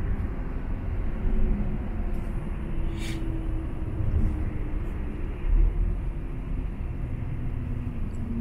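Steady drone of a semi-truck's engine and road noise heard from inside the cab while cruising on a motorway, with a short click about three seconds in.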